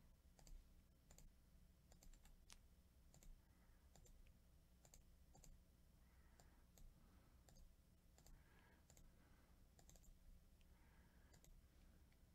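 Faint, irregular clicks of a computer mouse, several a second at times, over near-silent room hum.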